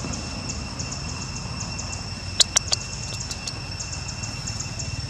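Insects chirring steadily in a high, even drone with a quick regular ticking, over a low rumble. About halfway through come three sharp clicks in quick succession, the loudest sounds.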